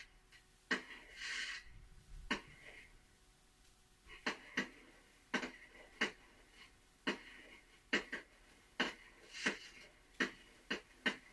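Recorded fireworks played through a small speaker: irregular sharp bangs and crackles, some in quick clusters, with short hissing whooshes between them.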